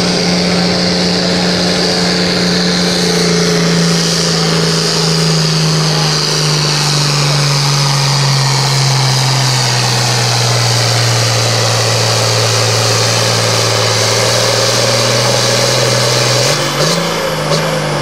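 Turbocharged International Harvester diesel tractor pulling a weight-transfer sled at full throttle. Its engine note sinks steadily as the sled's load builds and the engine lugs down, then rises briefly near the end.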